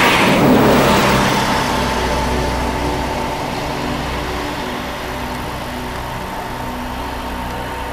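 A motor vehicle's engine running steadily, with a louder rush of noise in about the first second that fades away.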